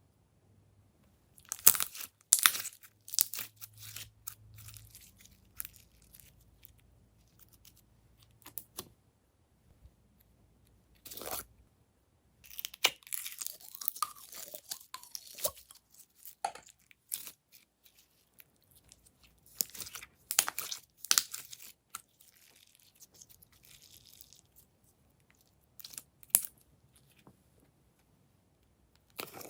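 Glossy slime being worked by hand, giving irregular bouts of crackling and crunching separated by quiet pauses.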